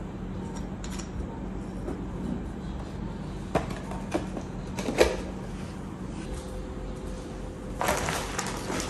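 A few light knocks as a glass reed diffuser bottle and its cardboard box are handled on a wooden table, the loudest about five seconds in, over a low steady hum. Near the end, rustling of woven plastic shopping bags.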